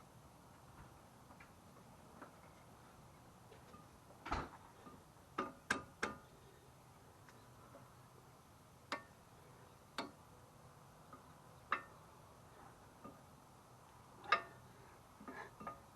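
About a dozen scattered metallic clicks and clinks, some ringing briefly, the loudest near the end: brake pads being worked into a caliper bracket with new anti-rattle hardware clips, where the pads are tight and not seating easily.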